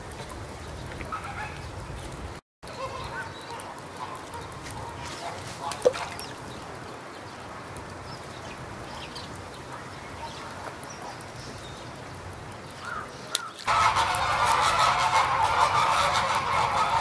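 Many birds calling together, starting suddenly and loudly about three-quarters of the way in, over a faint background with a few scattered short calls.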